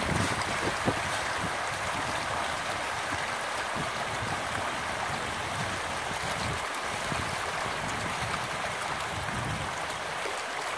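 A dense school of farmed tilapia splashing at the surface in a feeding frenzy as pellets are thrown in, a steady hissing, gurgling churn of water, with some wind rumble on the microphone.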